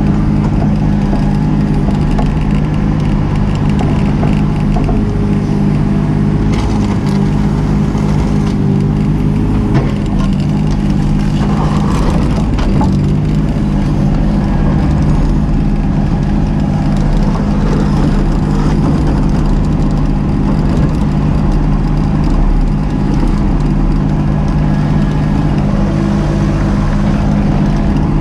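Mini excavator's diesel engine running steadily, with scattered knocks and crunching from material being worked.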